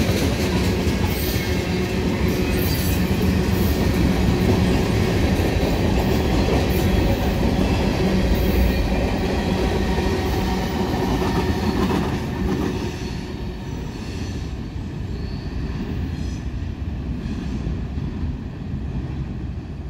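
Norfolk Southern local freight train rolling by, a steady rumble with its wheels clacking over the rail joints. The noise drops off about twelve seconds in as the train moves on.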